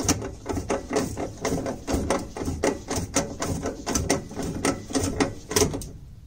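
Ratchet wrench clicking rapidly and unevenly as it backs out a mounting screw on a furnace draft inducer motor housing; the clicking stops about six seconds in.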